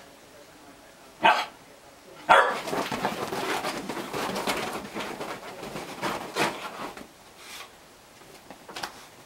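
Whippet playing on a bed: a sharp bark about a second in, then about five seconds of busy scuffling on the duvet with more short barks mixed in, dying down after about seven seconds.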